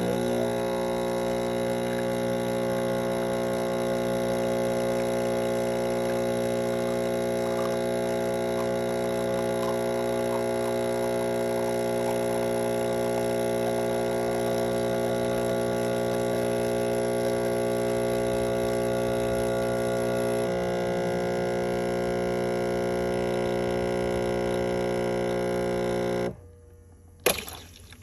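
Espresso machine pump running with a steady, even drone during extraction of a shot. About 26 seconds in it cuts off suddenly as the shot ends, and a sharp click follows about a second later.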